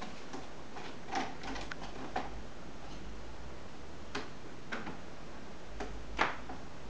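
Scattered light clicks and taps of cats climbing a sisal-post cat tree, claws catching the posts and paws landing on the platforms, at irregular intervals with the sharpest tap near the end.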